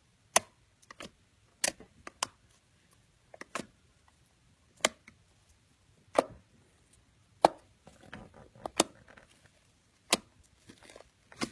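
Blue slime pressed and poked with fingers, giving sharp popping clicks as trapped air bursts, about one every second or so at uneven intervals, with softer crackling near the end.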